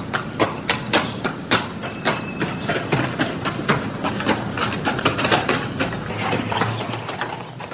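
Horse grazing: quick, crisp snaps of grass being cropped and chewed, several sharp clicks a second in an uneven rhythm.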